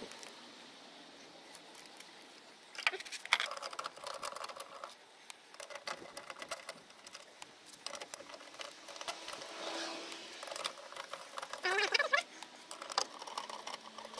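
Metal-on-metal clicking and rattling of a scissor jack's crank and a wheel brace working a steel wheel's bolts, with a few short rising squeaks about twelve seconds in.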